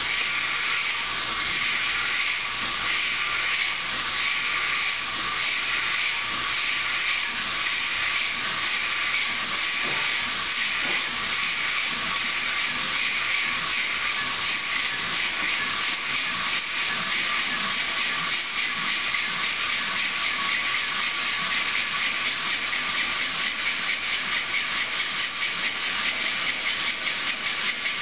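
Single-cylinder reciprocating steam engine running at its governed speed of about 260–270 revolutions a minute, driving a DC generator. It makes a steady steam hiss with a fast, even pulse.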